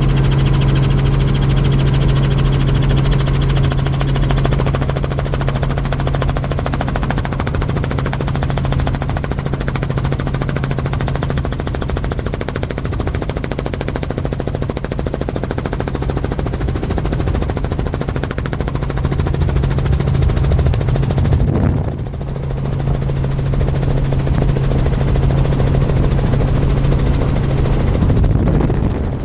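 Helicopter heard from inside the cabin in flight: a loud, steady drone of rotor and turbine with a deep hum and a high whine. The level dips briefly about three quarters of the way through.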